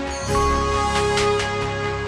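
Electronic music: held chords over a deep bass, with a new chord coming in about a quarter second in and two short high percussive strikes about a second in.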